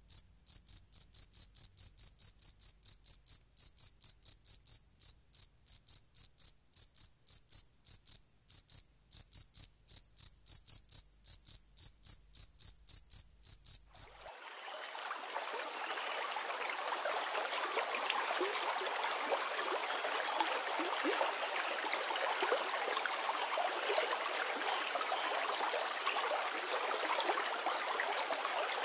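A cricket chirping in an even rhythm, about three high chirps a second. It cuts off abruptly about halfway through and is replaced by the steady rush of splashing fountain water.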